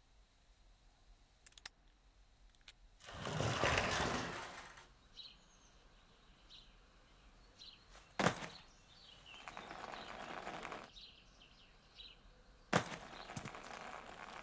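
A sliding glass door rumbling open about three seconds in, with faint birds chirping through the open doorway. Then two sharp knocks as hard-shell suitcases are bumped in over the door track, each followed by the rumble of suitcase wheels rolling on a hardwood floor.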